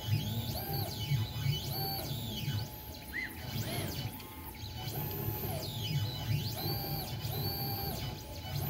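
Onefinity CNC's stepper motors driving the ball-screw axes in a string of short moves, each one a whine that rises in pitch as the axis speeds up and falls as it slows to a stop.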